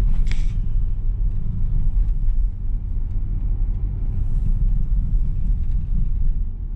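Steady low rumble of a 2022 Mitsubishi Xpander's engine and tyres inside the cabin, the CVT held in Ds while the car climbs a long hill.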